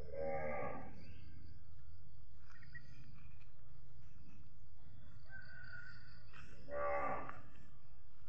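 An animal gives two short lowing calls, each under a second and about six seconds apart, over a steady low rumble.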